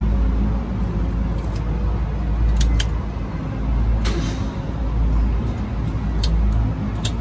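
Car keys jingling and a key going into the ignition, then a short rasp about four seconds in as the key is turned on a Toyota Avanza whose battery is too weak to start the engine. A steady low engine-like drone runs underneath.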